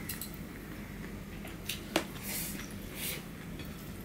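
Quiet eating by hand: fingers working rice and curry on ceramic plates, and chewing, with a few light clicks of dishes, the sharpest about two seconds in.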